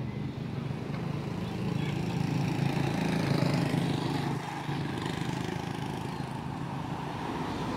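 A motor vehicle's engine passing along the road, growing louder to a peak about three to four seconds in and then fading away.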